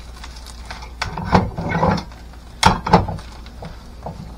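Kitchen clatter: a frying pan being shifted on a gas stove grate while a silicone spatula presses a potato pancake in it, with scraping about a second in and two sharp clacks about three seconds in, over a steady low hum.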